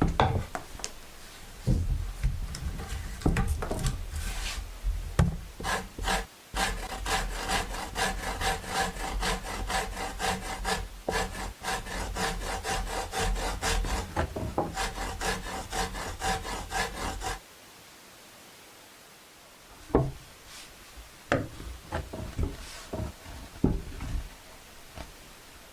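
Hand tools scraping and shaving a wooden horn blank: a few separate strokes, then a long run of quick, regular strokes with a ringing tone that stops about two-thirds of the way through. After that come a few scattered knocks.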